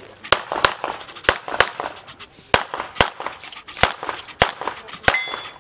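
9mm CZ 75 SP-01 Shadow pistol fired rapid-fire in quick pairs, about ten shots. Near the end a hit steel target rings out.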